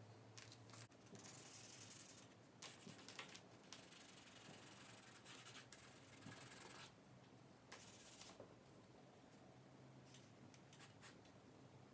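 Faint scratching of a white charcoal pencil on toned sketchbook paper, in runs of strokes with short pauses between them.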